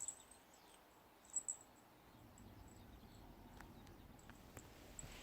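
A few faint, very high-pitched short squeaks from a small animal: one at the start and a pair about one and a half seconds in, with a few soft ticks later.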